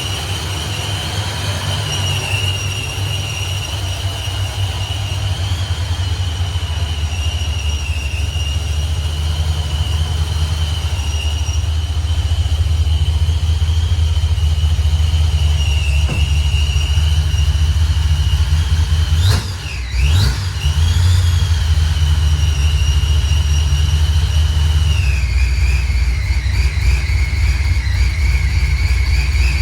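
The Blackout SS's engine idling during a warm-up run after an oil change: a steady low rumble with a high steady whine above it. Partway through, the sound dips briefly with a quick up-and-down sweep in the whine. Later the whine steps down in pitch as the idle settles.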